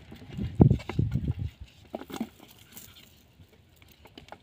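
Scattered soft thuds and rustles of a cast net being handled as small fish are picked out of the mesh, with a few light clicks around two seconds in. Busiest in the first second and a half, then quieter.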